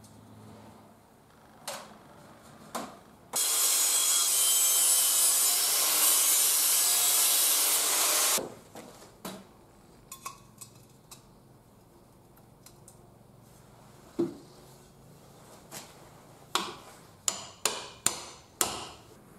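About five seconds of loud, steady abrasive noise of steel being worked, like grinding or filing. Later, sharp metal-on-metal taps, a quick run of five near the end, as a round steel bushing is driven into the end of a square steel tube clamped in a vise.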